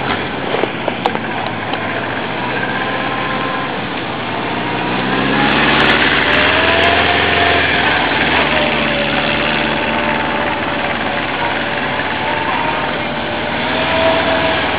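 Motorcycle engine running during slow riding. Its pitch rises as it speeds up about five seconds in, then eases back, with another small rise near the end.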